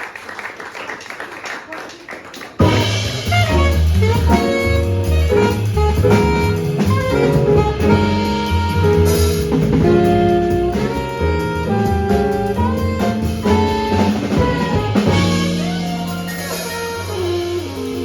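Jazz quartet playing: saxophone lines over piano, bass and drum kit. The band comes in suddenly, loud, about two and a half seconds in, after a couple of seconds of quieter room sound.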